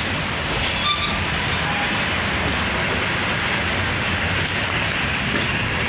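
Steady rumble and rattle of a moving passenger train, heard from inside a second-class carriage.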